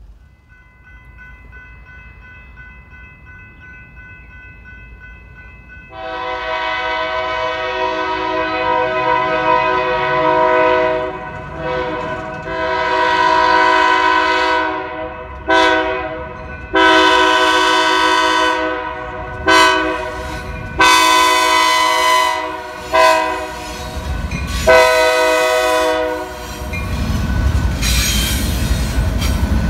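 BNSF diesel freight locomotive's air horn: faint and distant at first, then loud from about six seconds in, sounding a run of long blasts with short ones between as the train approaches a road grade crossing, the usual crossing warning. Near the end the horn stops and the locomotive passes close by with a low engine rumble and wheel noise.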